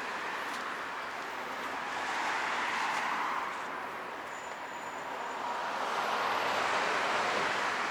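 Passing traffic: a steady rushing noise that swells as vehicles go by, about three seconds in and again near the end.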